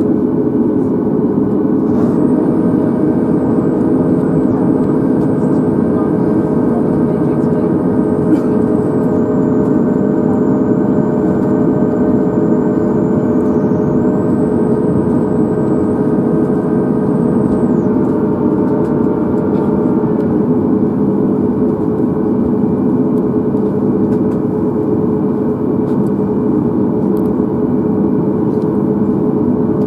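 Steady cabin hum inside a Boeing 737 MAX 8 standing at the gate: an even low drone with a constant tone in it. A faint high whine comes in about two seconds in and stops a little past the middle.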